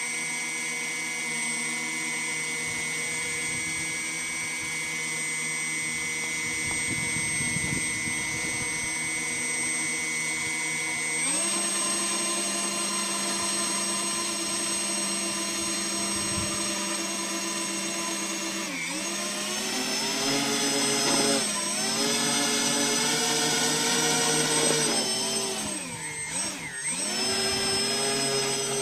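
Electric motors and propellers of a radio-controlled ekranoplan model running with a steady whine. Well over a third of the way in the throttle steps up to a higher pitch. In the second half the pitch dips and comes back up about four times as the throttle is worked.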